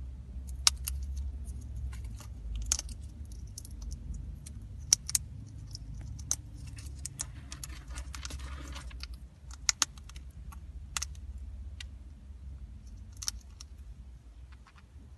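Irregular sharp clicks, a dozen or so, with a short rustle of paper about eight seconds in. They come from an orange-winged amazon parrot moving about on newspaper and sunflower seed shells in its plastic carrier. No calls.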